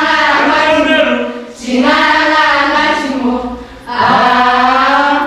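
A group of young female voices singing together unaccompanied, in long held phrases with brief breaks about a second and a half and four seconds in.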